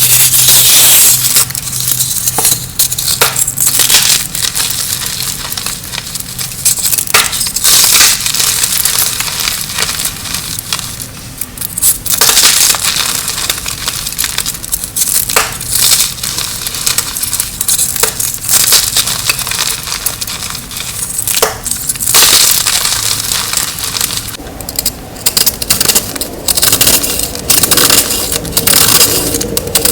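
Blocks of dyed gym chalk being crushed by hand: dry, crisp crunching and crumbling, with many sharp cracks as pieces break apart.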